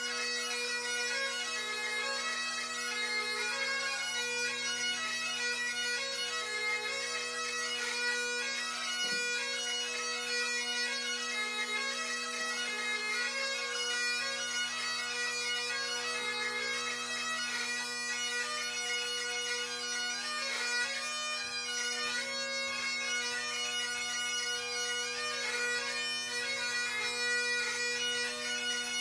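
Two Great Highland bagpipes playing a tune together: steady drones underneath a quick, busy chanter melody.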